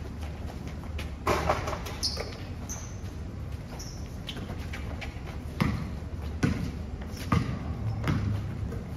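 A basketball bouncing on an outdoor hard court during a pickup game, about five irregular bounces, with a few short high sneaker squeaks in the first half.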